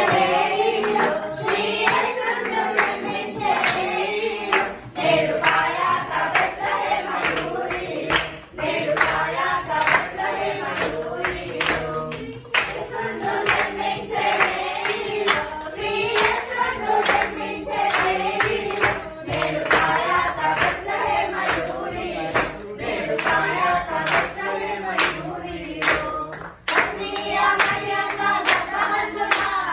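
A group of young people singing a Telugu Christmas folk carol together, with rhythmic hand clapping keeping the beat.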